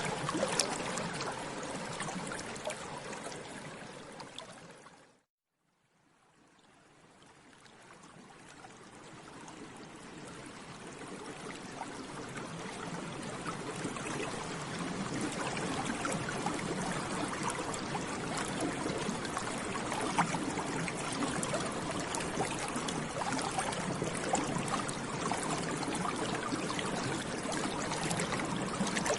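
Water bubbling steadily, a dense fizz of small bubbles popping. It fades out about five seconds in, drops to a moment of silence, then slowly fades back in.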